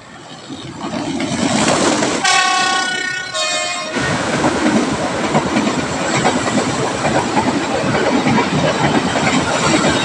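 KRL electric commuter train approaching and sounding its horn in two short blasts, the second lower in pitch, then passing close by with loud wheel and rail clatter.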